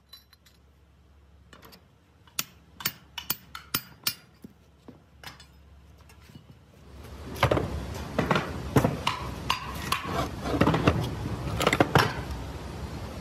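Metal pump parts clinking and knocking against each other as they are handled and fitted together. There are scattered sharp clinks at first, then a louder, denser run of clanks from about halfway through.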